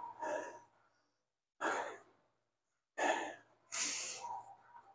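A man breathing heavily: four short, noisy breaths out, about a second apart, with quiet gaps between.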